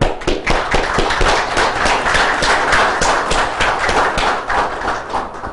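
Audience applauding: dense, fast clapping that starts suddenly and dies away near the end.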